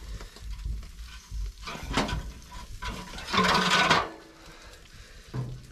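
Wire grill rack clinking and scraping against a metal fire drum as fish fillets are laid on it, with a sharp clink about two seconds in and a louder scrape a little past three seconds.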